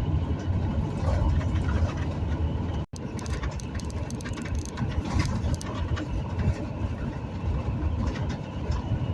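Steady engine and road rumble heard from inside a moving vehicle on the highway. The sound cuts out for an instant about three seconds in, then carries on.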